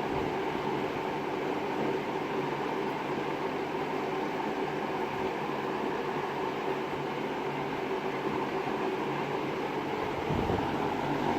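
JCPenney-labelled box fan running at speed: a steady rush of moving air with a low motor hum under it.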